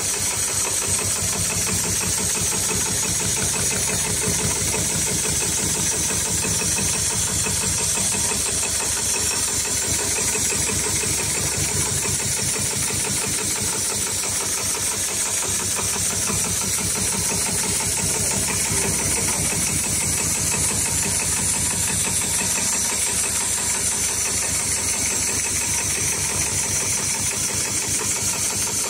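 HighTex 7273CNC heavy-duty programmable pattern sewing machine stitching stiff winch-strap webbing with very thick thread: a fast, even rhythm of needle strokes that runs on steadily.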